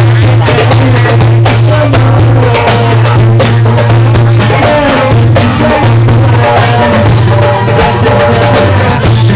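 Loud music with drums and rattling hand percussion over a heavy, steady low bass, with short melodic phrases above.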